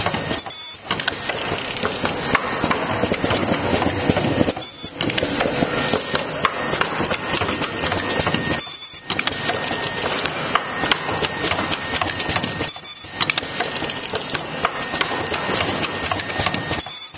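Automatic face-mask making machine running at its ear-loop cord feeding, cutting and welding station: continuous mechanical clatter with many sharp pneumatic clicks and a faint steady high tone. The sound drops out briefly about every four seconds.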